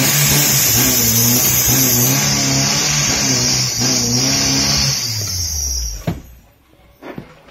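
Toyota Yaris 1.0-litre 1SZ-FE four-cylinder petrol engine running, heard from inside the cabin, its note swelling slightly in a regular pattern with a steady high hiss alongside. About six seconds in it winds down and stops as it is switched off, followed by a couple of short knocks.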